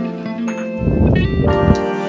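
Background music with held notes, growing fuller and louder for about a second midway.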